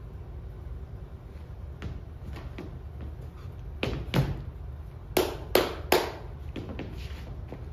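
A dancer's shoes striking the stage floor in taps, landings and stamps over a steady low hum. There are light taps about two seconds in, two louder thuds about four seconds in, then three heavy stamps in quick succession.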